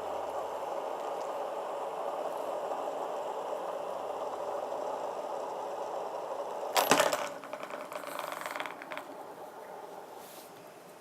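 Fidget spinners spinning with a steady whir, then a loud clatter about seven seconds in, followed by a rattle that fades out over the next couple of seconds.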